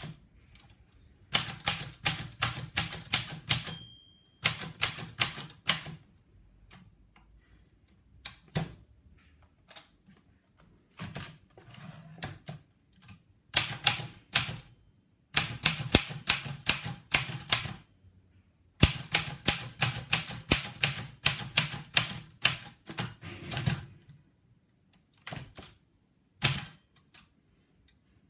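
Patria typewriter being typed on: runs of sharp key-strike clacks at several per second, broken by pauses of a second or two. About four seconds in there is one brief ring, like the typewriter's margin bell.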